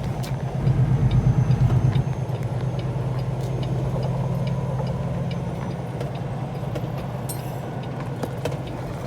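Truck's diesel engine running, louder and pulsing for about a second near the start, then steadier and slowly easing off.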